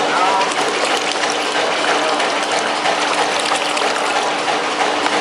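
Water gushing steadily from a clear plastic hose into a plastic bucket, pumped round by a small submersible pump in the bucket, with a steady low hum under the splashing.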